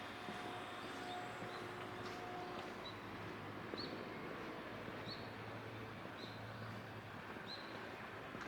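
A small bird chirping, short high notes repeated about once a second, over quiet rural background noise.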